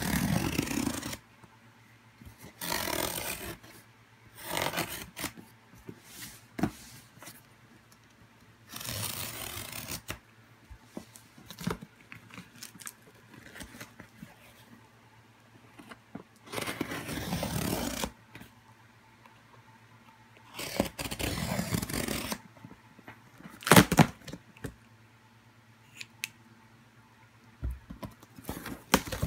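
Packing tape being ripped off a corrugated cardboard box, in about six separate rips of a second or so each with pauses between. One short sharp click, the loudest sound, comes about two-thirds of the way through.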